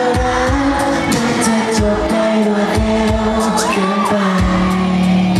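Live pop performance through a stage PA: male vocals sung over a backing track with a regular hi-hat beat. The deep bass drops away partway through and comes back strongly near the end.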